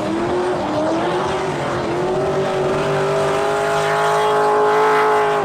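Drift car engine held at high revs, its pitch wavering and then climbing slowly, over a haze of tyre and exhaust noise.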